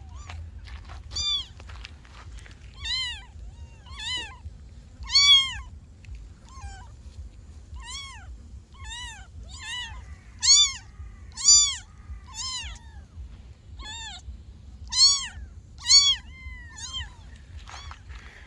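Kittens meowing: a string of short, high-pitched mews, each rising and falling in pitch, several kittens calling over one another, some calls much louder than the rest.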